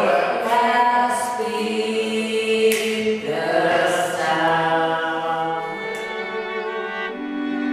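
Several voices singing together in long held, chant-like notes that step from pitch to pitch, with a few sharp hand claps.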